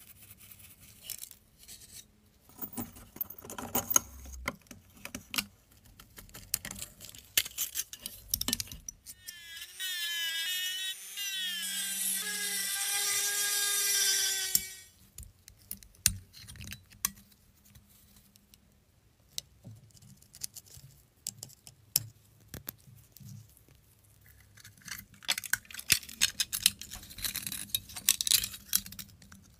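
A small handheld rotary tool spins up with a rising whine about nine seconds in and drills into a rusted sheet-metal locomotive part for about five seconds before it stops. Around it are sharp clicks and clinks of small rusted metal parts being handled.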